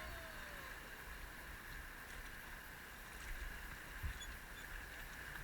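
Steady rush of river water, with low wind rumble on the microphone and a short knock about four seconds in.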